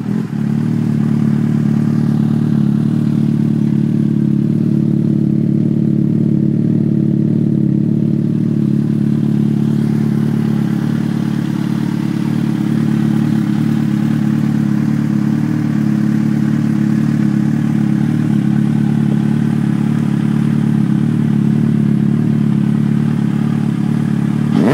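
Yamaha FZ6's inline-four engine idling steadily through a de-baffled Leo Vince exhaust.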